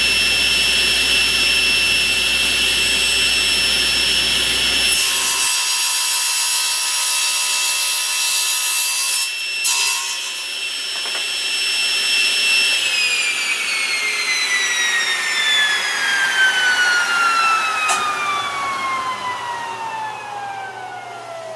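Laguna Fusion II table saw running at full speed with a steady high whine, a board being fed through the blade partway through. About thirteen seconds in the saw is switched off and its whine falls steadily as the blade coasts down.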